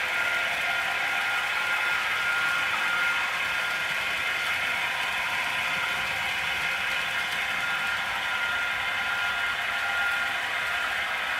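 H0-scale model freight trains running on the layout: the steady whir and rattle of the locomotives' electric motors and gear drives and of the wheels on the track, with a thin steady whine over it.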